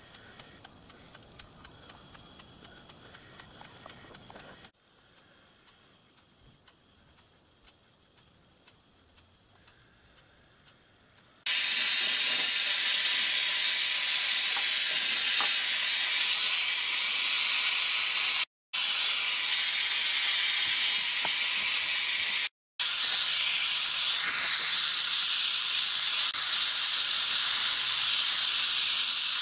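A few faint clinks of small metal parts being handled, then, starting suddenly about a third of the way in, the steady loud hiss of a gas torch flame heating bronze pieces for silver soldering.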